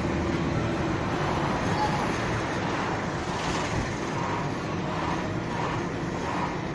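Steady road traffic noise: passing motor vehicles with engine and tyre noise.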